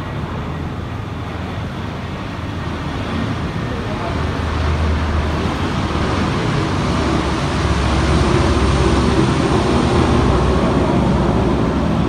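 Road traffic noise: a steady rumble of passing vehicles that grows louder about halfway through and stays loud.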